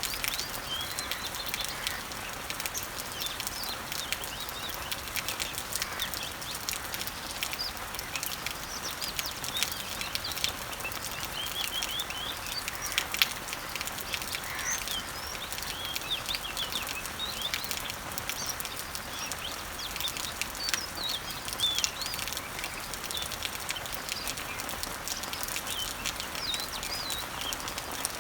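Rain falling steadily on garden leaves and trees, a soft even hiss with scattered drop ticks, while several birds sing with frequent short chirps.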